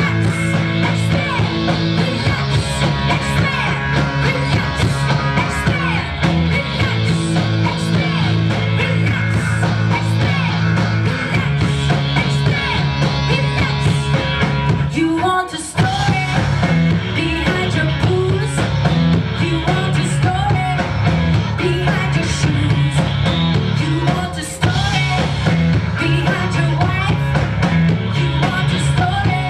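A live rock band plays loud: electric bass guitar and drum kit, with singing. The music drops out briefly about halfway through, then kicks back in.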